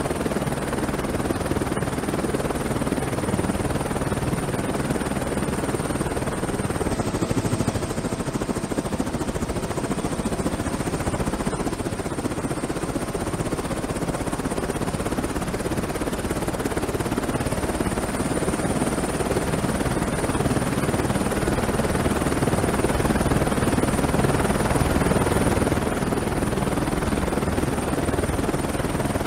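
Black Hawk helicopter running steadily: a dense rotor and engine rumble under a thin, high, steady whine.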